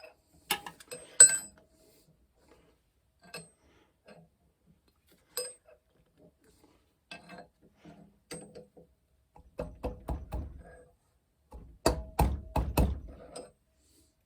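Metal-on-metal clicks and knocks from grinder parts and hand tools being handled during assembly: scattered single clicks, then two busy runs of clunks and rattles, about ten and twelve seconds in.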